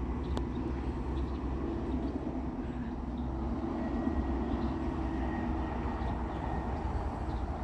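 Steady low outdoor rumble, like distant traffic or wind on the microphone, with a single sharp click just under half a second in.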